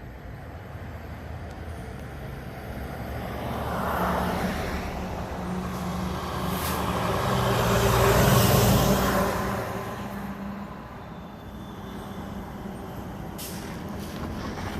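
Fire engine's engine running as the truck moves off and passes, getting louder to a peak about eight seconds in and then fading. Two short air-brake hisses come, one near seven seconds and one near thirteen and a half seconds.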